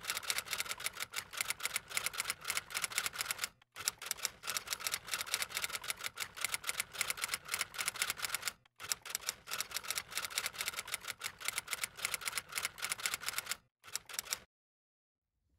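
Typewriter sound effect: rapid keystroke clicks that break off briefly three times, about four, nine and fourteen seconds in, and stop about a second before the end.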